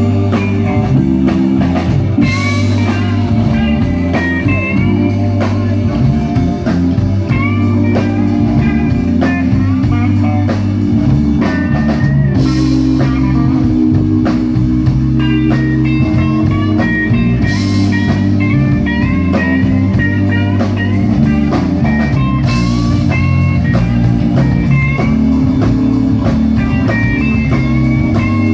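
Live electric blues band: an electric guitar plays a lead solo full of string bends over bass and drums, with several crash cymbal hits.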